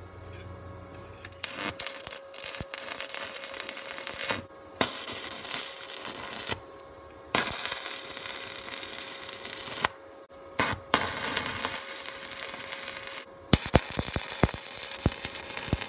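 Electric welding arc crackling on steel in about five runs of two to three seconds each, stopping briefly between them, with sharp pops in the last run.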